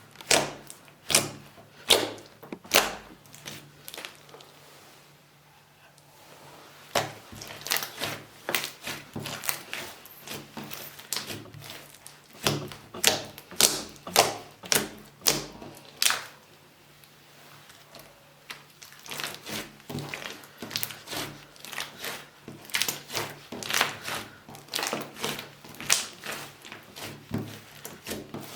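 Slime being squeezed and pressed by hand, giving quick irregular clicking and popping crackles in clusters, with two short quieter pauses.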